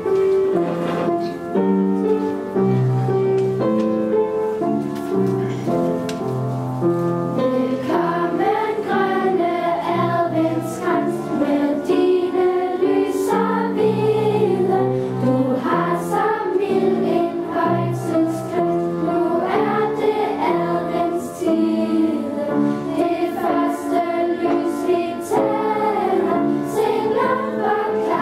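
Girls' choir singing a Christmas song with keyboard accompaniment: the keyboard plays steady chords alone for the opening seven seconds or so, and the voices come in about eight seconds in.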